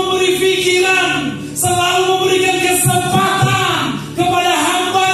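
Background music with sung vocals in long held phrases, a new phrase starting about a second and a half in and again about four seconds in.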